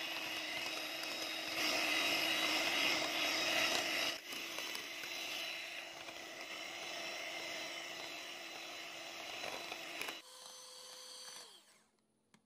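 Scarlett electric hand mixer running steadily with its twin beaters whipping semi-frozen whipping cream in a glass bowl. About ten seconds in it drops to a quieter hum, then falls silent near the end.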